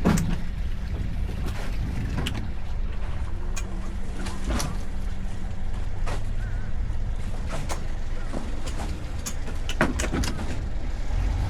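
Boat engine idling with a steady low hum, with scattered clicks and knocks over it.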